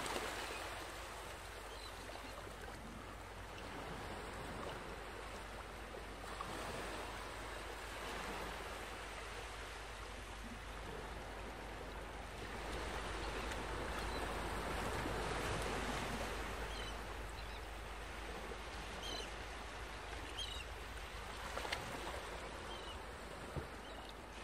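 Sea waves washing in: a steady rush of water that swells and eases, with a few faint high chirps in the second half.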